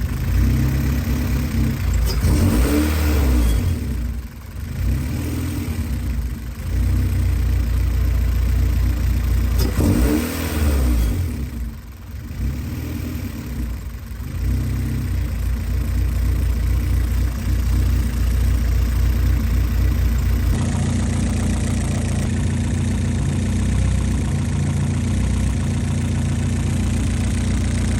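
Honda Civic's B-series four-cylinder engine revved up twice, each time settling back down, then idling steadily.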